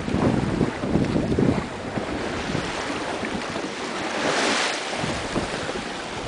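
Wind buffeting the microphone over the rush of sea water along the hull of a wooden sailing whaleboat under way. A brief splashing hiss comes a little past halfway, and the wind buffeting returns near the end.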